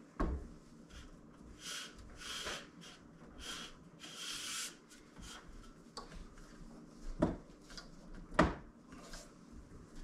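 Steel plate being slid and shifted into a manual sheet-metal bending brake: a knock at the start, several scraping swishes of metal sliding over the bench, then two sharp metallic clunks about a second apart as the plate is set in place.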